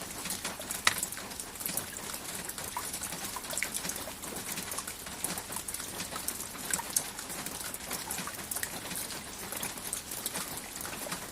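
Steady rain falling, an even hiss dotted with many small ticks of single drops, one sharper drop about a second in.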